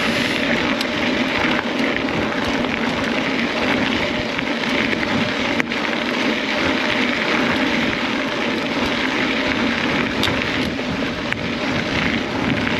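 Steady rushing noise of a mountain bike being ridden along a trail: wind on the microphone mixed with the tyres rolling over the dirt.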